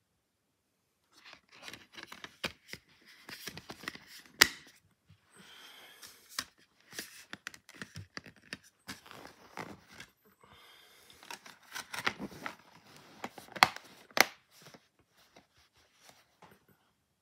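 A plastic multi-disc DVD case being handled: a run of sharp plastic clicks, snaps and rattles, with rubbing between them, as the discs in their trays are touched and the case is shut.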